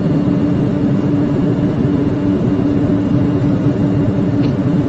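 Steady cockpit noise of a Boeing 747-400 on the ground with its engines idling: an even rumble and hiss with a constant low hum tone.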